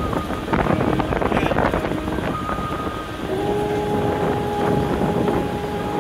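Wind buffeting the microphone over the running noise of a vehicle climbing a mountain road. A pair of steady held tones comes in about halfway through.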